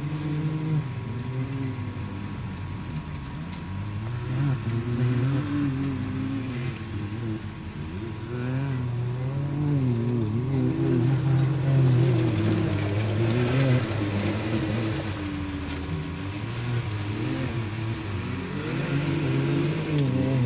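UTV engines revving and running under load, the pitch rising and falling again and again, louder for a few seconds around the middle.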